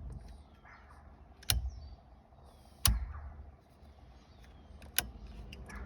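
Four sharp, irregularly spaced clicks from hands working the new turn signal lever and its screw on a 1976 Chevrolet C10 steering column.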